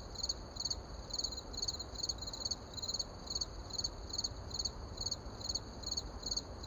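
Crickets chirping in short, high-pitched pulses, two or three a second, over a low steady rumble.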